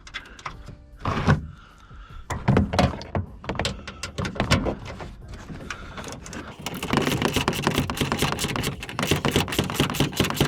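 Scattered metal knocks and clunks as the rear strut's upper bolts are worked by hand. From about seven seconds in comes a fast, steady clicking, like a hand ratchet tightening the strut's top mounting bolts.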